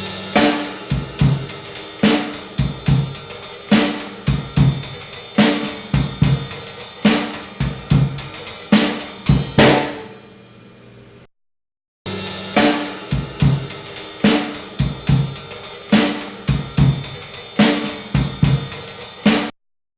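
Slow striptease-style drum-kit loop: kick drum, snare and hi-hat in a slow, heavy groove with a strong accented hit about every second and a half. The beat drops out briefly about eleven seconds in and again near the end as the loop starts over.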